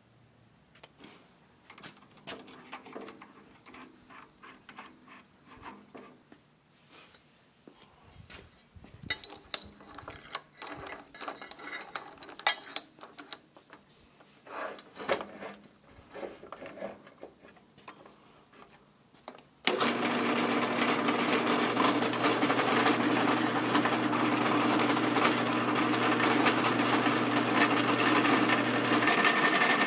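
Scattered clicks and knocks of metal parts and tools being handled, then about two-thirds of the way through a benchtop drill press motor switches on suddenly and runs steadily, its bit set on the steel cleaver blank forged from a lawnmower blade.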